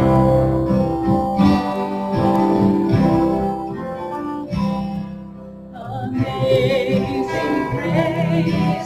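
Acoustic guitar strumming a hymn introduction, easing off briefly about five seconds in. A singing voice comes in on the melody about six seconds in.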